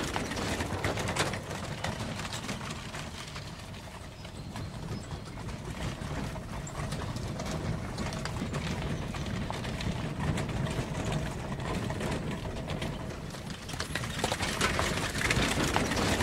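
Hooves of a harnessed team of work horses stepping at a walk on a forest track, a continual run of knocking footfalls.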